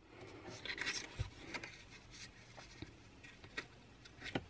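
Faint rustling of paper being handled, with a few light ticks and taps, as a printed photo and a paper die-cut are slid and positioned on a scrapbook page.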